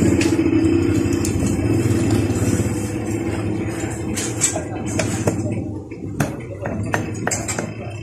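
Several sharp clicks and light metal knocks as the magneto cover of a Honda Wave 125 engine is fitted by hand. Under them runs a steady low background drone that fades about five and a half seconds in.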